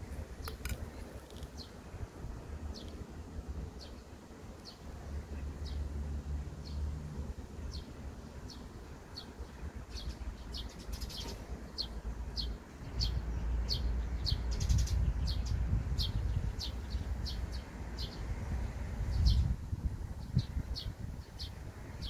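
A bird repeating short, sharp chirps, one or two a second, over a low rumble that gets louder about halfway through.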